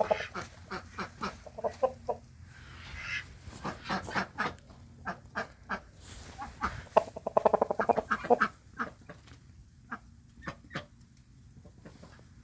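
Poultry calling: a string of short clucks and clicks, with a fast cackling run about seven to eight and a half seconds in, then fading to quiet.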